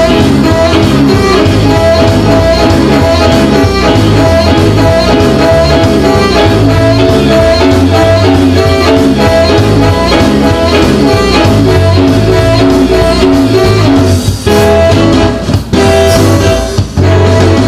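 Recorded rock and roll band music with guitar and drums and a steady beat, dropping out for a few brief stop-time breaks near the end.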